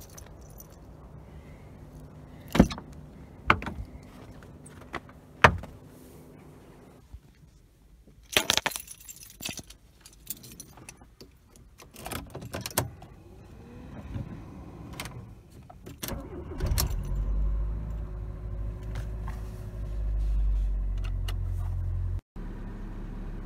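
Car door clicks and knocks, a door shutting and keys jangling, then the 2002 Fiat Punto's 1.2-litre 8-valve four-cylinder petrol engine starting from cold in freezing weather. It settles into a steady low idle after a brief break in the sound near the end.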